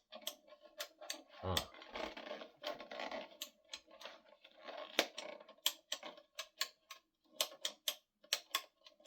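Irregular sharp clicks and rattles of small plastic parts being handled on a small air compressor and its fuse holder, with a few rustles. There is no motor sound: the compressor does not start.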